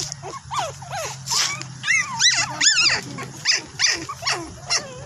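Puppy whining and yelping in a rapid run of short, high calls, about three a second, each rising and falling in pitch, over a steady low hum.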